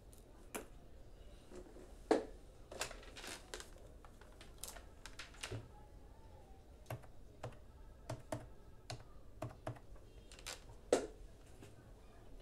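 Desk telephone being handled: the handset is lifted and the keypad pressed, a string of light clicks and taps with two louder knocks, about two seconds in and near the end.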